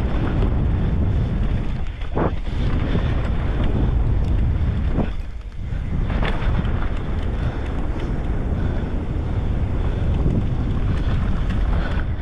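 Wind buffeting the camera microphone: a loud, steady low rumble with a brief dip about five seconds in.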